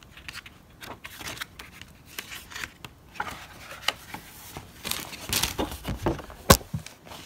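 Sheets of a Prima Marketing patterned paper pad being handled and turned over: scattered paper rustles and soft taps, busiest about five seconds in, with one sharp paper snap about a second before the end.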